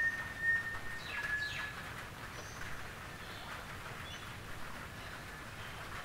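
Gentle rain pattering steadily on a tin roof, with birds chirping and whistling over it. The bird calls are clearest in the first two seconds: a held whistle, then quick downward-sliding chirps, with a few softer calls later.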